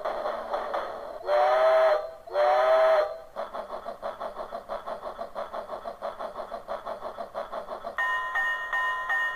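A locomotive-shaped novelty telephone plays its electronic train ringtone: a steam engine chugging at about four beats a second, two loud steam-whistle blasts, then more chugging. About eight seconds in it switches to its ordinary pulsing electronic telephone ring.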